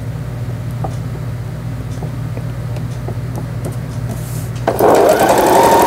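Janome Memory Craft 5000 computerized sewing machine stitching through layered fabric. A steady low hum with faint ticks gives way, about five seconds in, to a louder burst of fast, rapid stitching.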